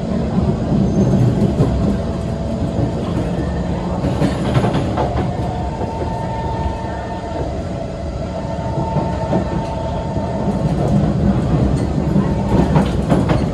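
Singapore MRT train running along elevated track, heard from inside the carriage: a steady rumble of wheels on rail with a faint whine that comes and goes. A few sharp clicks and clatters come about four seconds in and again near the end.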